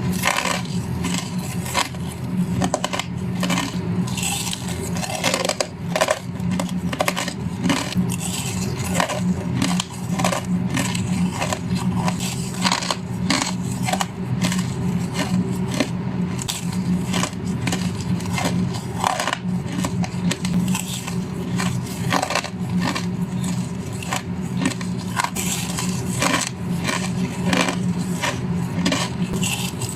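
A person biting into crushed ice: a fast, irregular run of crisp crunches and cracks that goes on without a break.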